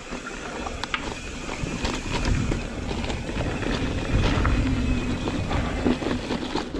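Mountain bike ridden over a dirt singletrack: knobby tyres rumbling over dirt and rocks, with clicks and rattling knocks from the bike. The rumble grows louder over the first few seconds.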